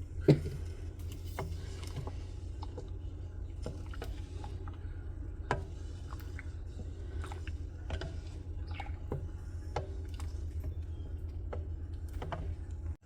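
Spoon knocking and scraping against the Instant Pot's metal inner pot while stirring heating milk: scattered clicks and knocks, a sharp one about a third of a second in, over a steady low hum.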